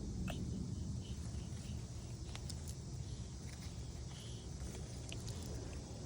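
Red-footed tortoise making scattered short clicks, irregularly spaced, a few with a brief high chirp-like tone, over a steady low rumble.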